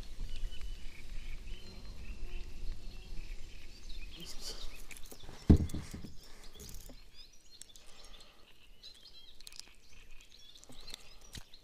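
Wind buffeting the microphone with a low rumble for the first half, a single sharp knock about five and a half seconds in, then quieter surroundings with birds chirping.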